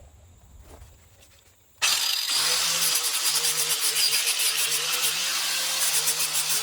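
A 5-inch grinder fitted with 80-grit sandpaper starts suddenly about two seconds in and runs steadily with a motor whine and a loud, coarse abrasive rush as it sands wood.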